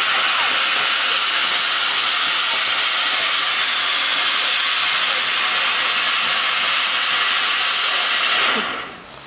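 Garden ground firework spraying sparks with a loud, steady hiss that dies away about eight and a half seconds in as it burns out.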